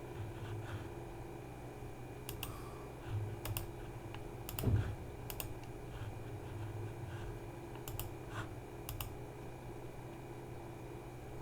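Scattered keystrokes and clicks on a computer keyboard, irregular and a second or so apart, over a steady low hum.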